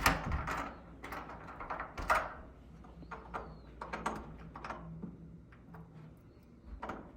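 A few scattered knocks and clicks of handling at irregular intervals, the loudest right at the start and about two seconds in.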